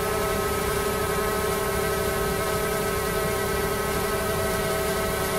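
Xiaomi Mi Drone 4K quadcopter hovering, its propellers giving a steady buzzing hum of several held tones over an even hiss.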